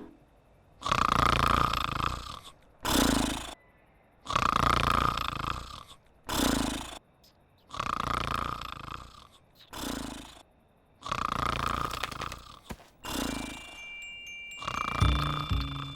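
Cartoon sheep snoring: a long rasping snore followed by a shorter one, the pair repeating about every three and a half seconds, four times. Musical notes come in near the end.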